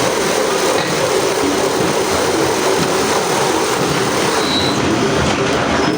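Heavy machinery running with a loud, steady mechanical noise, with a brief high metallic squeal near the end.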